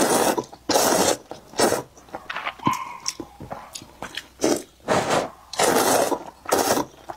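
Thin noodles being slurped from a bowl of soup in long drawn sucks: two near the start and two more about five to six seconds in, with chewing and wet mouth sounds between them.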